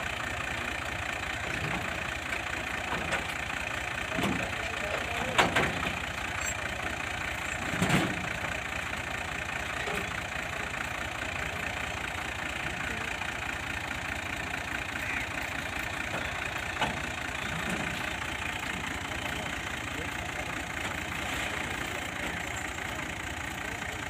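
Diesel tractor engine idling steadily, with a few sharp metal knocks in the first third and one more past the middle as the drive shaft to the wheat thresher is being fitted.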